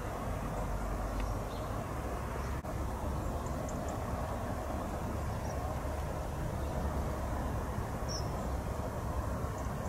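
Steady outdoor background rumble, with a few faint, very short bird chirps scattered through it.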